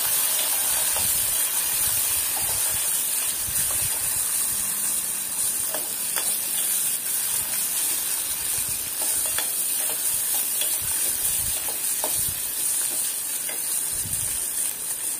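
Sliced onions sizzling steadily in hot oil in an aluminium pot, stirred with a steel spoon that now and then clicks against the pot.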